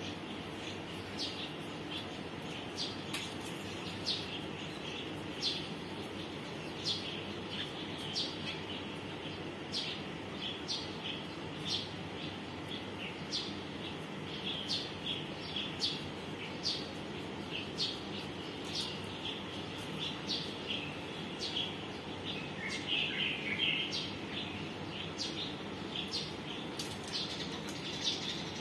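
Small birds chirping, short high chirps repeating about once a second, with a quick run of chirps about two-thirds of the way through, over steady background noise.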